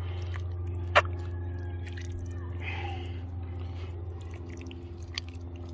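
Metal spatula stirring thick chili in a cast-iron Dutch oven: soft wet squishing, with a sharp clink of metal on the pot about a second in and another near the end, over a steady low hum.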